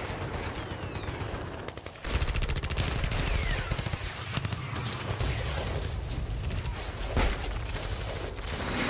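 Battle sound effect of rapid gunfire: a fusillade of machine-gun fire, densest from about two seconds in, with a single sharp shot near the end.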